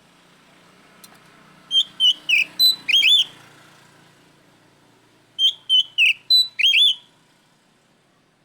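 Oriental magpie-robin (kacer) singing loud whistled phrases, typical of its 'ngeplong' call that challenges a rival. There are two bursts of about five clear notes each, some sweeping up or down, and the second repeats the first a few seconds later.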